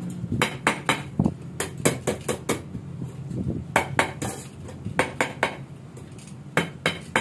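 Irregular sharp metallic clinks and knocks, about two or three a second, from sheet-metal exhaust parts being handled, over a steady low hum.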